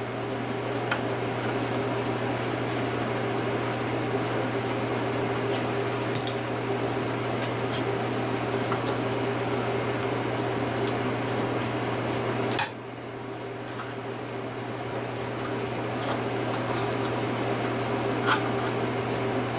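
A steady machine hum in the room, with a few faint clicks and scrapes of a screwdriver prying at the nails in a wooden cuckoo clock's roof and frame; one sharper click comes about twelve seconds in.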